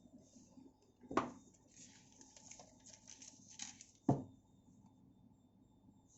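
Two sharp taps or knocks about three seconds apart, with soft rustling between them: a phone box and its packaging being handled during unboxing.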